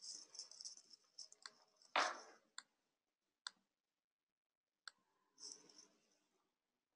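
Faint computer mouse clicks, a handful of single clicks spaced about a second apart, with a few short soft noises between them.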